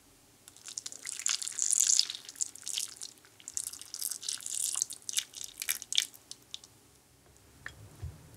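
Hot whipping cream poured onto dark chocolate callets and butter cubes in a glass bowl: a spattering trickle of liquid with many small ticks, for about six seconds, then it stops. A soft low knock near the end.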